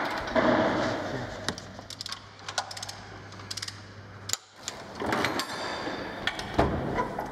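Socket ratchet wrenches clicking in short quick runs, with scattered clinks and knocks of metal tools.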